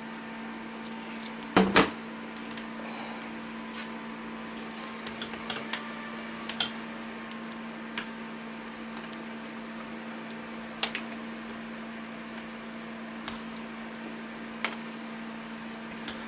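Scattered clicks and taps of a crimping tool and Ethernet cable being handled while the cable's outer jacket is stripped back, with a louder double click about two seconds in. A steady low hum runs underneath.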